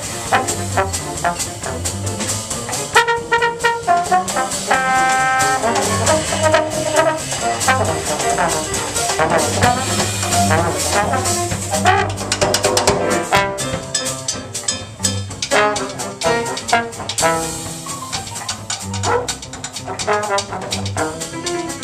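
Live jazz trombone solo, held and running notes over a rhythm section of drum kit and a walking bass line.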